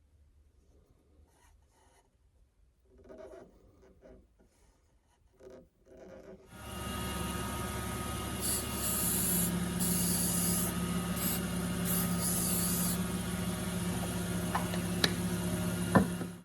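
Wood lathe running steadily for about ten seconds, with bursts of rubbing hiss over the motor hum as something is pressed against the spinning duck-call blank. It stops abruptly near the end. Before it starts there are only a few faint handling sounds.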